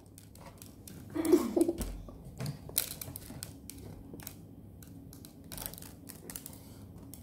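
Irregular light clicks and taps from fingers and candy sprinkles handled close to the phone's microphone, with a brief child's murmur about a second in.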